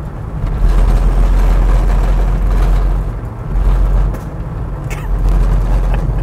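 Two vans, an LDV panel van driving close behind a small van, passing on the road with engine and tyre noise over a heavy low rumble.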